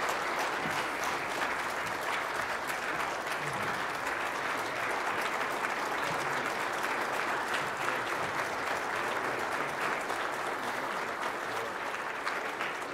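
A large audience applauding in a standing ovation: dense, steady clapping from many hands, easing off slightly near the end.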